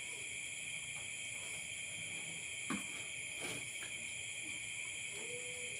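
Steady night chorus of crickets and other insects, a constant high-pitched ringing made of several held tones. Two faint clicks come near the middle.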